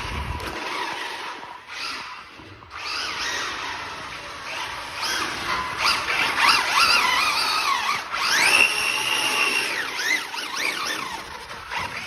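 Brushless electric motor and drivetrain of a 1/8-scale RC car whining, the pitch rising and falling repeatedly as the throttle is worked.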